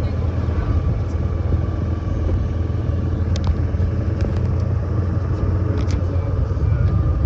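Golf cart driving at a steady speed: a steady low rumble with a faint whine, and a few light clicks in the middle.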